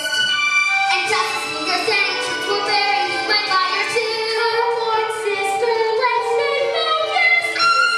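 Two children, a girl and a boy soprano, singing a Broadway show-tune duet into microphones over musical accompaniment.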